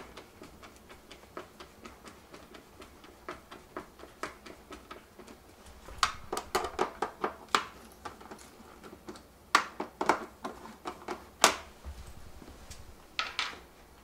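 Hand screwdriver ticking quickly and lightly as it turns the screws holding the replacement control panel in the top edge of a Maytag dishwasher door. Louder sharp clacks come in clusters about halfway through and again near the end.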